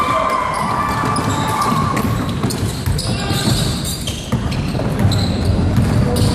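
Live basketball game in a large gym: the ball bouncing on the hardwood floor and players running, with voices calling out over the echo of the hall.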